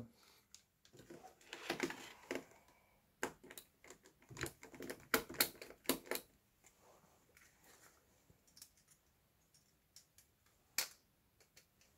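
Screwdriver working the screws of a plastic terminal block, with small parts being handled: a scatter of light clicks and taps, thickest in the first half, and one sharper click near the end.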